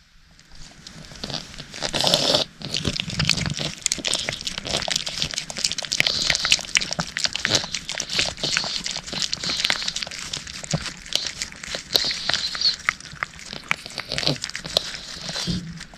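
Cat eating close to the microphone: a dense run of quick wet licking and chewing clicks, with a brief louder burst about two seconds in.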